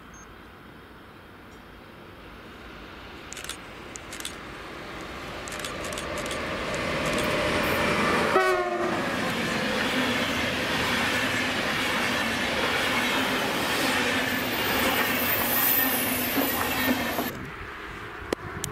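Electric-locomotive-hauled Intercity train passing close by: rail noise building as it approaches, a short horn blast about eight seconds in as the locomotive passes, then the steady clatter and rumble of the coaches with a thin high wheel squeal near the end, cutting off sharply as the last coach goes by.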